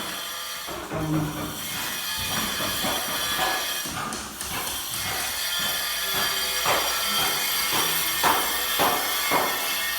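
Steady hiss, then from about six seconds in a run of separate scraping strokes, roughly one every half to one second: wood being sawn by hand.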